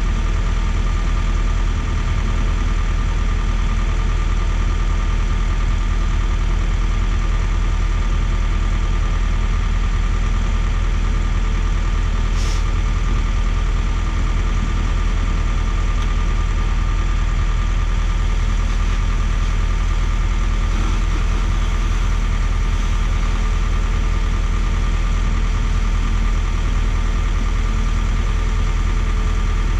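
A concrete mixer truck and a Schwing trailer concrete pump running together at a steady, even engine note. A short high tick sounds about halfway through.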